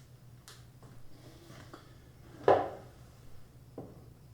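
A few light knocks and taps, then one much louder clunk about two and a half seconds in, over a low steady hum.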